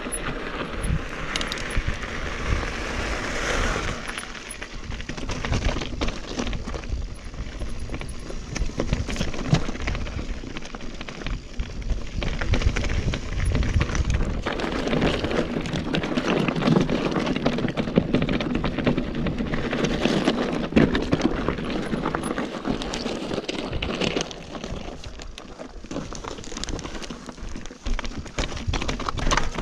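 Mountain bike rolling down a rocky, gravelly singletrack: tyres crunching over gravel and stones, with the bike rattling and clicking over the bumps.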